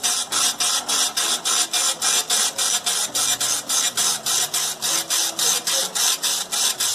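RP45 impact dot-matrix receipt printer running its self-test print: the ribbon print head shuttles across the paper in a fast, even series of rasping buzzes, about four or five a second.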